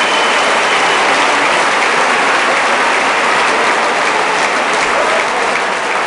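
Crowd applauding with steady, dense clapping that eases slightly near the end.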